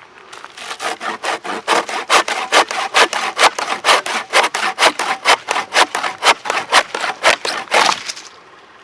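Hand saw cutting wood: quick, even back-and-forth rasping strokes, about four or five a second, that stop about a second before the end.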